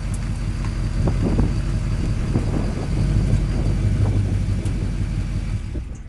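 A 6.6 L Duramax LLY V8 turbodiesel running with a heavy low rumble that swells twice, and a thin steady whistle from its Garrett variable-vane turbocharger above it. The sound drops away sharply near the end.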